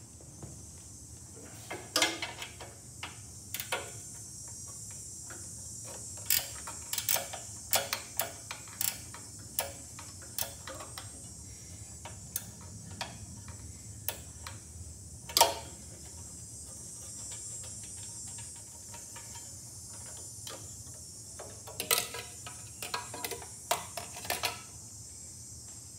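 Small 10 mm ratcheting wrench clicking as it works a bolt loose, with metal clinks from tools and parts being handled, in irregular clusters with the loudest clink about fifteen seconds in. A faint steady hum runs underneath.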